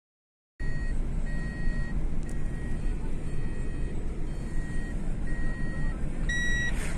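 A car driving along a road, heard from inside the cabin: a steady rumble from the engine and tyres, with a dashboard warning chime beeping about once a second that grows louder near the end. An oncoming car whooshes past shortly before the end.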